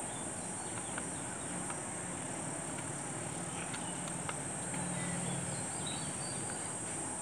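Steady high-pitched chirring of insects, unbroken throughout. Over it come a few faint soft clicks from hands working spice paste into raw fish steaks.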